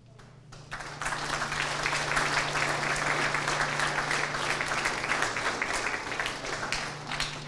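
Audience applauding: many hands clapping in a dense patter that builds about a second in and thins out near the end.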